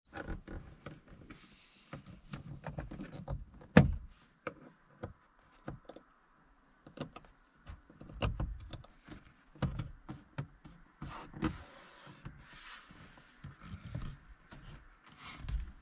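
Irregular clicks, knocks and rustling from hands working on a car's interior trim panels and wiring, with one sharp, loud click about four seconds in.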